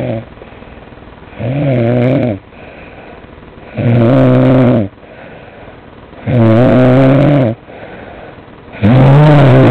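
Loud, regular snoring: four long, pitched snores of about a second each, about every two and a half seconds, with quieter breathing in between.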